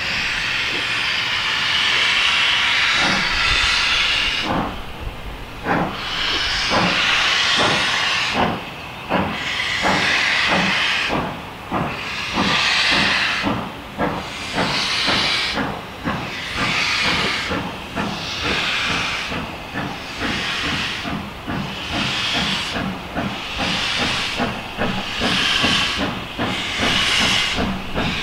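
GWR 4-6-0 steam locomotive starting away with its cylinder drain cocks open: loud steam hissing, first continuous, then in rhythmic pulses, over exhaust beats that quicken as it gathers speed.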